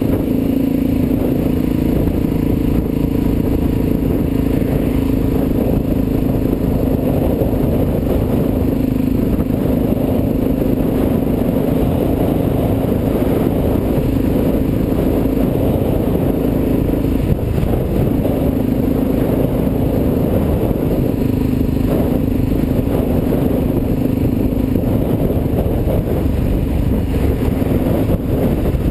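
Suzuki DR-Z400's single-cylinder four-stroke engine running at a steady cruise, with wind rushing over the microphone. The engine note wavers briefly a little past halfway, then settles again.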